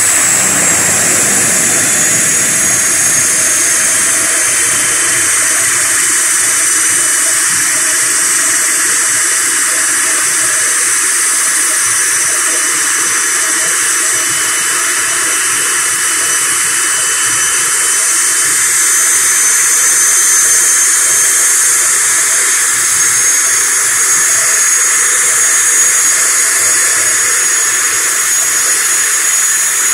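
ATR 72 turboprop engine running at the stand: a loud steady hiss with a high turbine whine. The whine falls in pitch over the first few seconds and rises a little about two-thirds of the way through.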